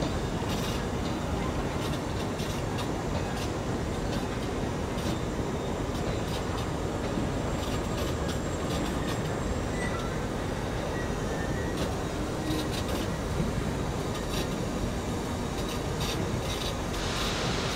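1929 Sentinel DG8 steam waggon running, heard from inside its cab: a steady mechanical din with scattered clicks and knocks.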